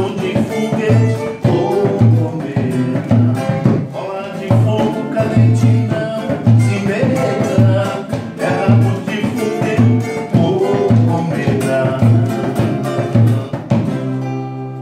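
Samba-enredo on two acoustic guitars, one steel-string and one nylon-string, strummed over a wooden hand drum beating a steady low pulse about twice a second. Near the end the drum stops and a final chord rings out and fades.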